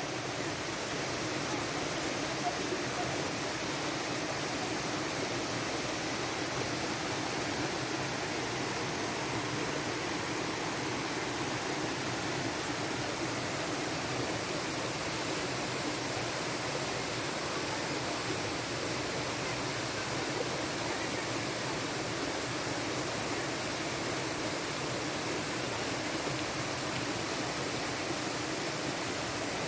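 Waterfall pouring into a river pool: a steady, unbroken rush of falling water.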